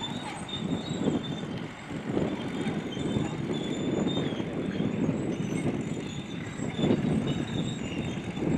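Heavy engine of WWII-era construction machinery running under load. The rumble surges and falls, with faint high-pitched squeals over it.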